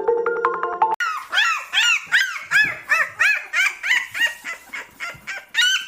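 Puppies crying: a rapid string of short, high-pitched whimpering cries, each rising and falling, about three a second and overlapping, starting about a second in after a brief bit of music.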